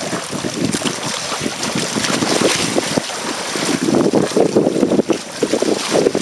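Wind buffeting the microphone in uneven gusts, over the rush and splash of water along the hull of a Hobie Tandem Island sailing kayak under way.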